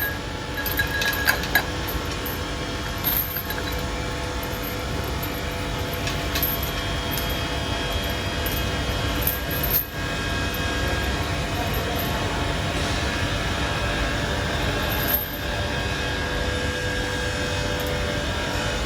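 Steady machinery running with a low hum and a few faint steady tones, broken by occasional light metallic clinks.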